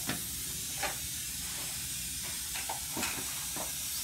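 Dental handpiece spraying air and polishing powder onto the teeth with a steady hiss, with a few short clicks over it.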